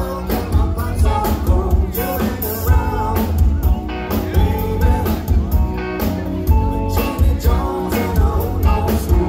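Live rock band playing: electric guitars, bass and drums with a steady beat, and a singer.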